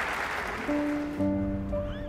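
Applause dies away, then music comes in: held notes that build into a sustained chord about a second in.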